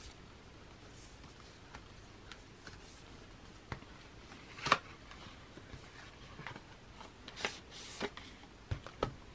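Cardboard album packaging handled and slid apart as the inner box is drawn out of its outer casing: scattered light rustles and taps, the loudest about halfway through and a few more near the end.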